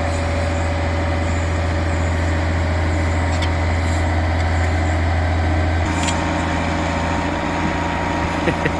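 Excavator's diesel engine running steadily with a deep, even hum. Its note changes about six seconds in, and a few sharp clicks sound near the end.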